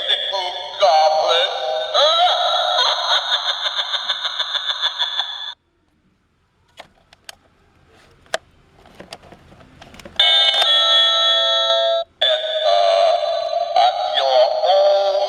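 Halloween witch doorbell toy's small speaker playing its electronic voice and tune, tinny with no bass. It cuts off about five seconds in, a few faint clicks follow, and it starts again about ten seconds in with a chiming tune.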